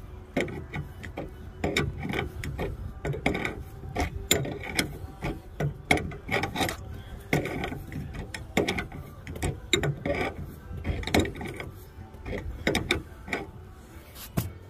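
A threaded fitting being tightened into the aluminium body of a plasma cutter's air regulator: a run of irregular metal clicks and scrapes.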